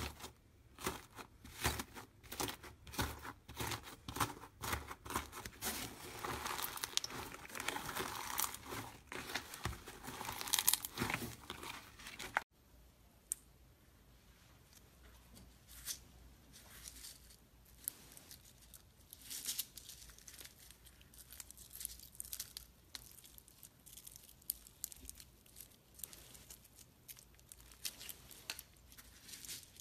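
Thick slime being torn and squeezed by hand, a dense crackling and crunching. About twelve seconds in it changes to quieter, sparser clicks and crunches as green slime is pressed into a layer of clear beads.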